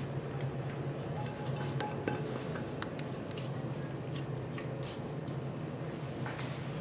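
Silicone spatula scraping sautéed onion out of a stainless steel bowl into a pot, with light scattered scrapes and clinks of the bowl rim on the pot, over a steady low hum.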